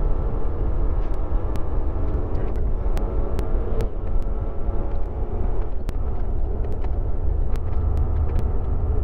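Steady low drone of a transport truck's diesel engine and tyres while cruising, heard from inside the cab, with faint, irregular ticks over it.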